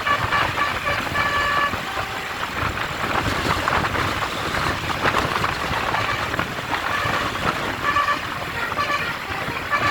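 Bus "basuri" telolet horn playing short melodic phrases of held notes, once in the first two seconds and again in the last two and a half seconds. Between the phrases there is a noisy stretch with no clear tones.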